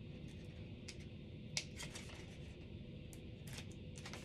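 Faint paper handling: soft rustles and a few small clicks and ticks as backing paper is peeled off small adhesive pieces and pressed in place, with one slightly louder tick about a second and a half in.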